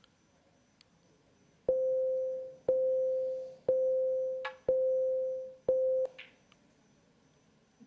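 Snooker shot-clock warning beeps: five steady single-pitch beeps, one a second, counting down the last seconds allowed for the shot, the last one cut off short. A sharp click of snooker balls comes partway through the beeps.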